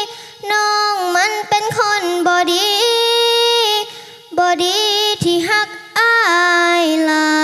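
A young girl singing a Thai song alone, without accompaniment, in three phrases of long held notes that bend and slide in pitch, with short breaths between them.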